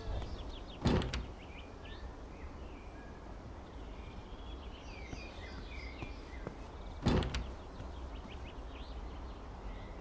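Two loud clattering door sounds about six seconds apart: a knock at the door, then the door being opened. Birds chirp faintly in between.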